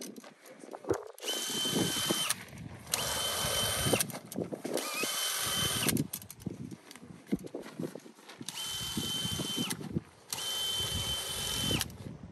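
Cordless drill driving a mesclun greens harvester, run in five short bursts of a second or so each. Each burst is a steady motor whine as the blade cuts the salad leaves, rising as the trigger is pulled and dropping off as it is released.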